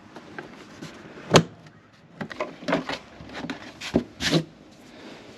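Engine bay covers on a Land Rover being fitted back into place by hand: a series of knocks and clicks, with the sharpest knock about a second and a half in and two more around four seconds in.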